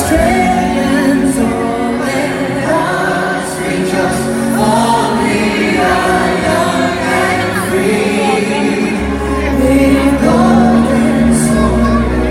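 Music with choral singing.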